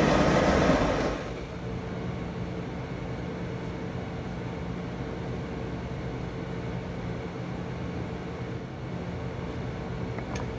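A gas wok burner running loudly for about the first second, cutting off abruptly. After that there is a steady low machine hum with two low tones, and a faint click near the end.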